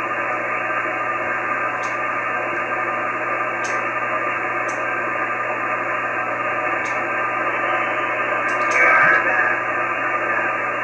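Icom IC-9700 transceiver's receiver audio in single-sideband mode: steady hiss from the XW-2B satellite's linear-transponder downlink, cut off sharply above the SSB filter, with faint signals in it. A brief louder patch comes about eight and a half seconds in, and a few faint clicks sound through.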